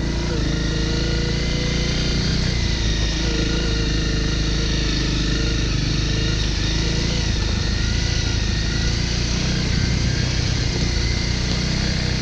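Honda CRF250L's single-cylinder four-stroke engine running while the dirt bike is ridden at an even pace, its pitch rising and dipping slightly with the throttle.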